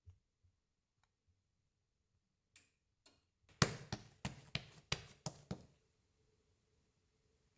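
A quick run of about eight sharp taps over some two seconds, from bread dough being handled and pressed on the work mat, with a few faint clicks before it.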